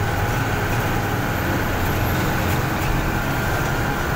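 Steady engine and road noise heard from inside the cab of a moving truck, a constant low drone with a faint steady whine above it.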